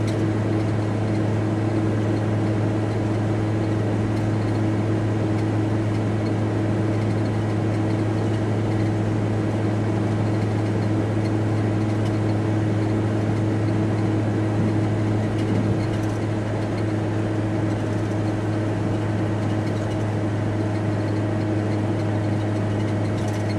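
Volkswagen T4 Transporter van driving at a steady pace, heard from inside the cab: an even engine and road drone with a constant low hum, unchanging throughout.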